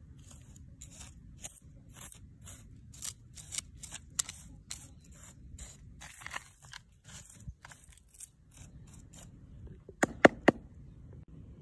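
A metal tool scraping and stirring through gritty potting soil, in short repeated strokes about two or three a second. About ten seconds in come three sharp, loud knocks.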